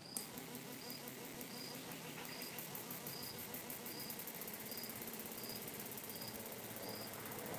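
Homemade electrofisher's 12 V to 220 V inverter running in pulsed mode: a faint, fast, high-pitched ticking buzz, with a short high chirp repeating about every three-quarters of a second.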